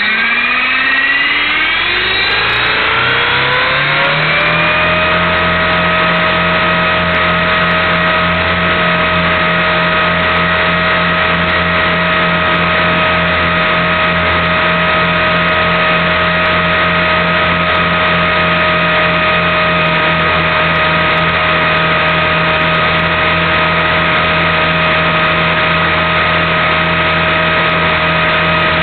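Align T-Rex 450 Pro electric RC helicopter spooling up: the brushless motor and drive whine rise in pitch over the first four seconds or so, then hold a steady high whine over a low rotor hum.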